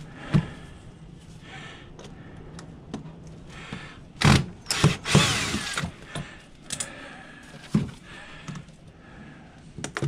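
Cordless drill backing screws out of a desk-fan motor's housing in short runs: a brief burst about four seconds in, then a longer run of under a second. A few knocks and clinks of the metal motor being handled come before and after.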